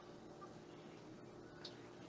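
Near silence: faint room tone, with one soft tick near the end.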